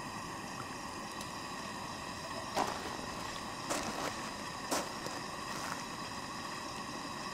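Low, steady background hiss with faint even tones, broken by four or five soft clicks or taps about halfway through.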